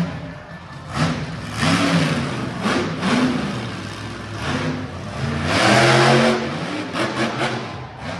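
Monster truck engine revving in repeated bursts, its pitch rising and falling with each press of the throttle, loudest about six seconds in.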